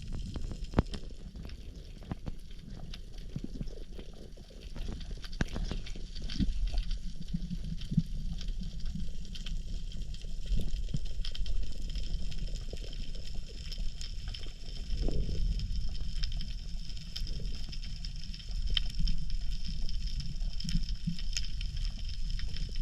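Underwater ambience heard through a camera housing: a dense, irregular crackle of sharp clicks over a steady low rush of moving water.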